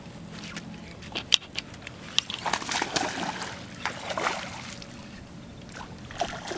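A hooked bass thrashing and splashing at the water's surface in irregular bursts. About a second in there is a sharp click, the loudest sound, and another about two seconds in.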